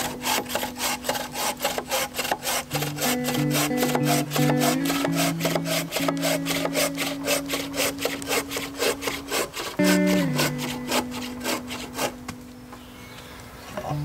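Instrumental folk background music: held melody notes over a fast, even, scrubbing rhythm of about four strokes a second. The opening phrase repeats about ten seconds in, and the music thins out briefly near the end.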